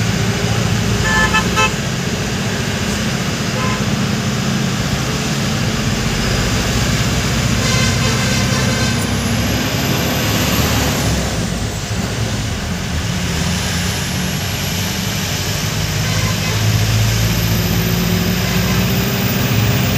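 Truck cab interior while driving: the engine runs steadily under road noise, with short horn toots about a second in and again near eight seconds.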